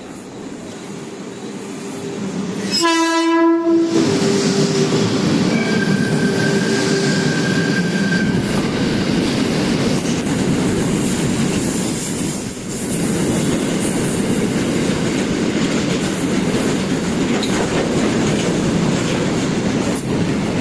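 A WAG-12 electric freight locomotive approaches, growing louder, and gives one short, loud horn blast about three seconds in, followed by a fainter held tone for a few seconds. The train then runs past with a steady loud rumble and wheel clatter on the rails.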